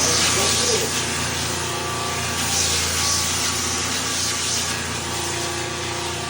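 Floor sanding machine sanding a wooden parquet floor: a steady motor hum under an abrasive hiss that starts suddenly and swells in the middle.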